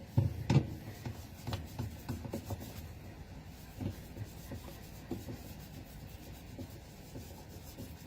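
Wet microfiber cloth scrubbing a stain on a washing machine's surface, a steady run of short rubbing strokes. A couple of thumps in the first second.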